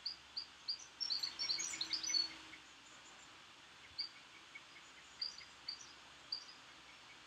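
Small garden birds chirping: a quick run of short high chirps in the first couple of seconds, then scattered single chirps.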